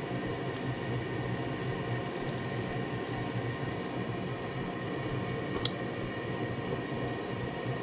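Gas furnace running just after burner ignition: a steady noise of the burners and draft inducer with a faint steady tone. A single sharp click sounds about five and a half seconds in.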